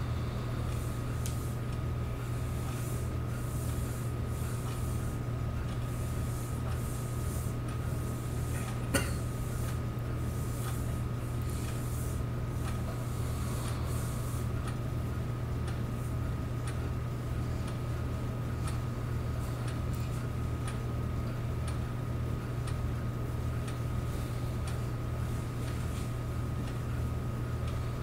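8mm film projector running: a steady motor hum with a fast, even pulsing underneath and faint ticking, and one sharp click about nine seconds in.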